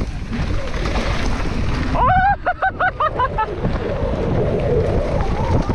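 Wind noise on the microphone over a mountain bike rolling fast down a rocky dirt trail. About two seconds in comes a short run of rising-and-falling pitched calls, lasting about a second and a half.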